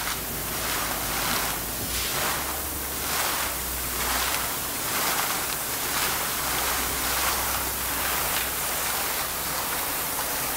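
Borewell being cleaned by air-lift: compressed air from a high-power air compressor drives muddy water up out of the bore casing in a gushing fountain that splashes down onto wet ground. The rush surges roughly once a second, over a low steady hum.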